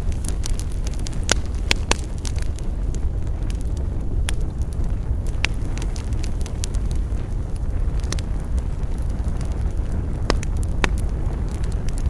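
Wood campfire crackling, with irregular sharp pops, a handful of them loud, over a steady low rumble.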